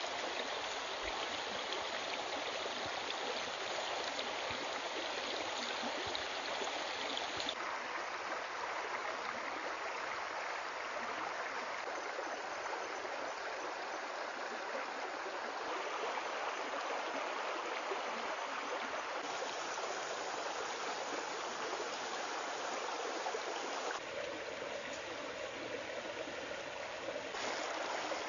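Steady rushing hiss like running water, changing in tone abruptly a few times.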